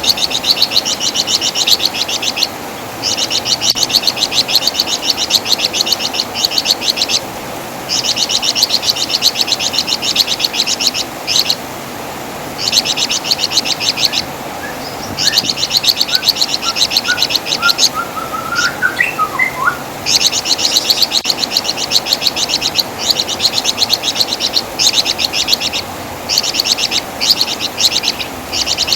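Flamboyan (wergan Jawa) songbird giving rapid, high-pitched chattering trills in repeated bouts of one to three seconds with short pauses between them. A few softer, lower chirps come in around the middle.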